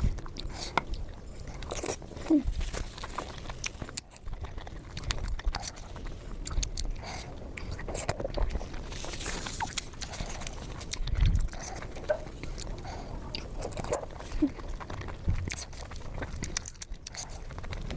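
Close-miked mukbang eating sounds: a person biting into and chewing steamed momos, with irregular wet smacks and soft clicks from the mouth.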